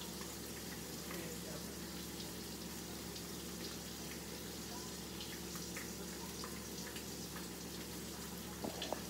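Catfish filet searing in a hot pan: a steady sizzle with scattered small crackles and pops. A couple of sharper knocks come near the end.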